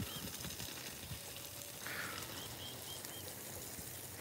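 Garden hose spraying water onto soil and shrubs, a faint steady hiss. A bird calls twice in short runs of quick repeated chirps, once at the start and again about two seconds in.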